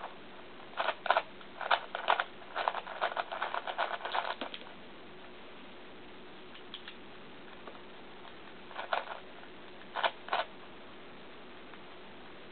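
Sheng En Type F-II 3x3x3 speedcube being turned: its plastic layers click in quick bursts, with a fast run of turns from about two to four and a half seconds in, then short pairs of clicks near nine and ten seconds.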